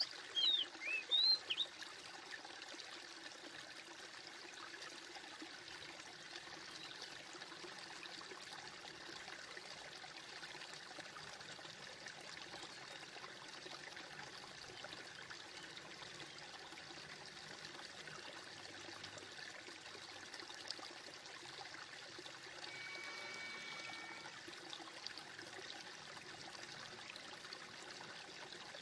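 Faint, steady rushing like running water. A few bird chirps come in the first second or so, and a brief high steady tone sounds a little after twenty seconds.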